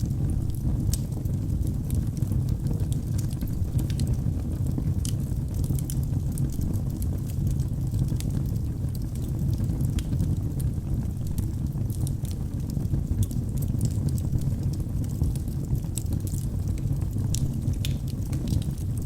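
Wood fire burning in a fireplace: a steady low rumble of flames with irregular sharp crackles and pops from the burning wood.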